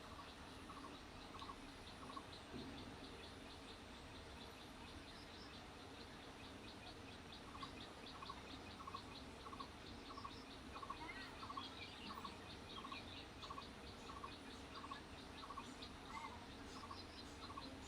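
Faint outdoor ambience: a bird calling in short chirps repeated about three times a second, over a faint low steady hum.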